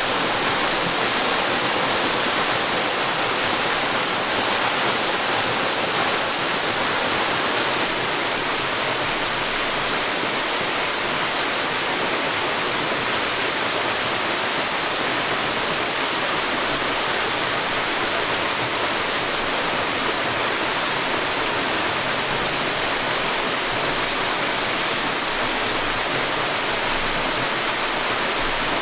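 Waterfall pouring over a rock ledge: a steady, even rush of falling water, a little louder for the first several seconds.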